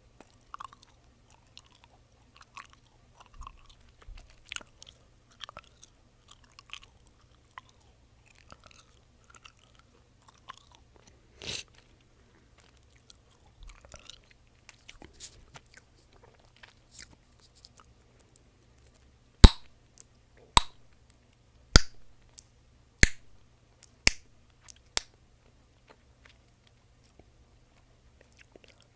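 Chewing gum worked close to the microphone, with soft wet mouth clicks. About two-thirds of the way through come six loud, sharp gum pops, roughly one a second.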